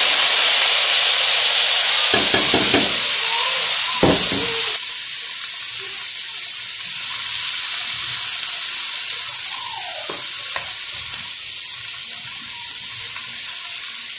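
Sliced onions sizzling loudly in hot oil in a kadhai, a steady frying hiss. A few stirring knocks and scrapes come between about two and four seconds in.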